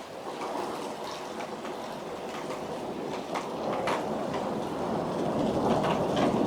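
Rolling thunder rumbling and building steadily louder, with scattered ticks of raindrops.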